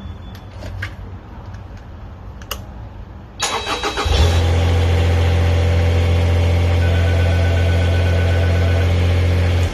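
Engine of a homemade backhoe excavator cranked over by its starter and catching about four seconds in, then running steadily at a low idle before cutting off suddenly. A few clicks come before the start.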